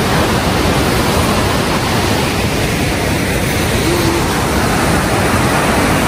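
White-water rapids rushing through a narrow rock gorge: a loud, steady rush of water.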